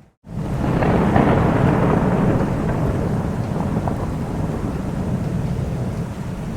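Thunder rumbling over steady rain. It breaks in after a brief dropout near the start, is loudest about a second in, and slowly eases into a continuing rumble under the rain.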